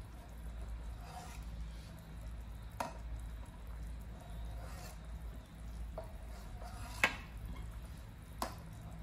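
Stainless steel ladle skimming foam off a pot of boiling meatball soup: soft bubbling and sloshing of the broth, with a few sharp clicks of the ladle against the pot, the loudest about seven seconds in.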